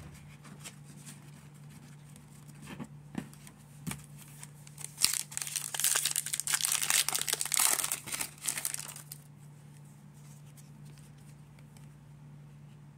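Foil wrapper of a Donruss baseball card pack being torn open and crinkled: about four seconds of loud crackling in the middle, after light clicks of cards being handled. A steady low hum runs underneath.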